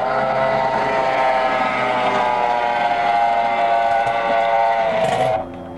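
High-revving outboard engine of a race boat running flat out on a high-speed pass: a loud, steady, whistle-like whine whose pitch slides slowly down. It cuts off abruptly about five seconds in, leaving a quieter, lower engine note.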